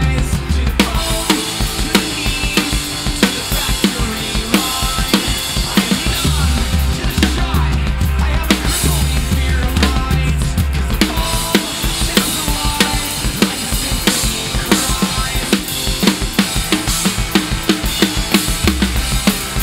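Acoustic rock drum kit played hard: snare, bass drum and cymbals in a dense, driving beat, along with a pop-punk backing track of bass and guitars.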